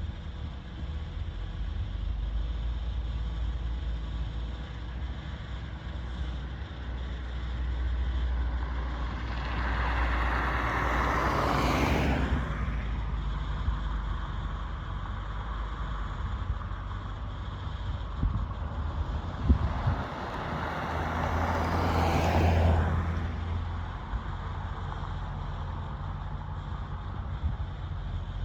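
Two road vehicles passing one after another about ten seconds apart. The tyre and engine noise of each swells up and fades over a few seconds, over a steady low rumble.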